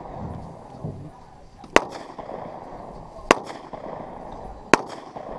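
Three single gunshots, about a second and a half apart.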